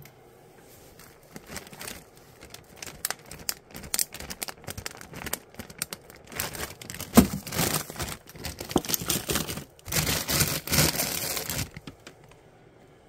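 Plastic food packaging crinkling and rustling as frozen food is handled, with many small clicks and knocks. It is heaviest in two stretches through the middle and stops about a second before the end.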